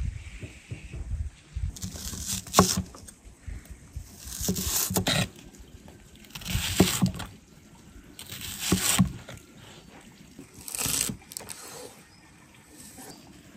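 A large kitchen knife slicing through a red onion on a wooden cutting board. There are about five cuts, roughly two seconds apart; each is a short crunching slice that ends in a sharp knock of the blade on the board.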